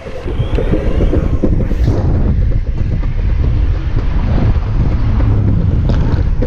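Loud wind buffeting an action camera's microphone as it moves quickly along a street, a steady rumbling noise.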